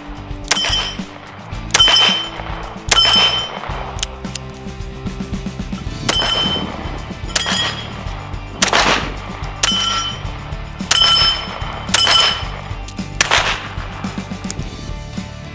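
Handgun shots about a second apart, each with a short metallic ring after it: a few from a Smith & Wesson Model 60 revolver in .38 Special, then after a pause of about two seconds a steady string from a 9mm SIG Sauer P226. Background music plays underneath.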